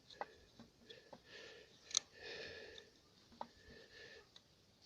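Faint clicks and light scraping of a piston ring being worked over a tractor piston on a strip of tin-can metal, with one sharper click about two seconds in.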